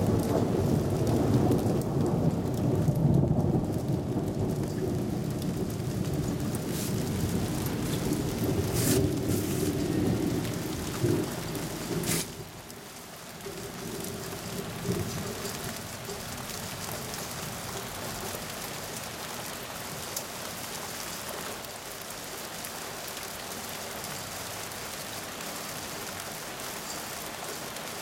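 Thunder rolling as a long deep rumble that ends abruptly about twelve seconds in, over steady hissing rain that keeps going afterwards. Two sharp crackles come near the middle.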